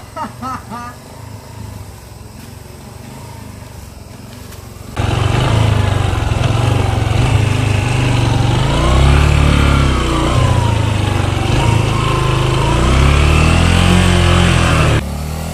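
Dirt bike engine, faint for about five seconds, then suddenly loud and close as heard from on the bike. It runs at low revs that rise and fall as it picks its way along a rutted mud track, and drops away again near the end.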